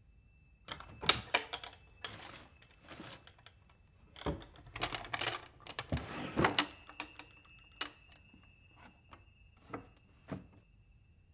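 Hands rummaging through a wooden drawer: irregular clicks, knocks and rustles as small objects are shifted about. They are busiest in the first seven seconds and thin to a few separate clicks near the end.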